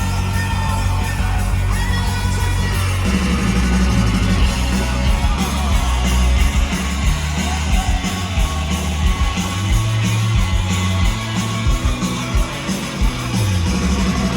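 Live rock band playing loud, with distorted electric guitars, bass and fast drums, and a shouted voice in the mix.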